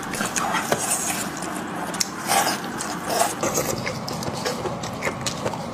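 Gloved hands tearing apart a cooked sheep's head close to the microphone: a continuous run of small clicks and crackles as meat and bone are pulled apart.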